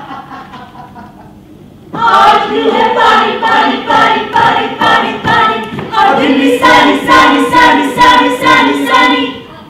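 A group of voices singing together in unison to a steady pulsing rhythm, starting about two seconds in and stopping just before the end.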